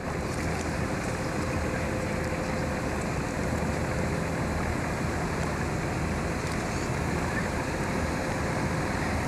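A small boat's engine running steadily at low speed, a low even hum under wind and water noise.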